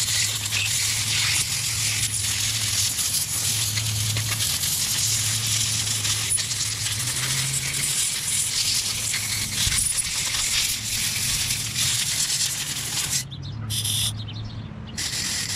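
Aerosol contact cleaner sprayed through its straw into a small-engine carburetor to flush out debris: a long continuous hiss for most of the time, then a few short bursts near the end.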